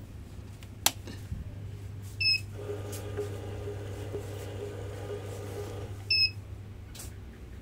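ZSA 911 banknote counter powering up: a sharp click, a short beep, then its motor and friction rollers run steadily for about three seconds in the start-up cycle, followed by a second beep and another click.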